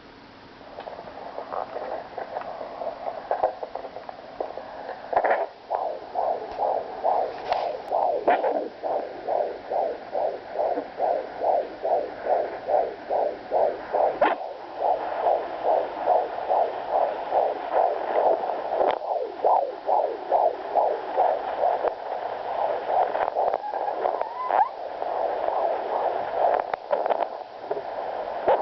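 Fetal heartbeat through a handheld fetal Doppler's speaker: a fast, even pulsing at about two and a half beats a second, over a steady hum. It is faint at first and comes in clearly from a few seconds in, with a few sharp clicks along the way.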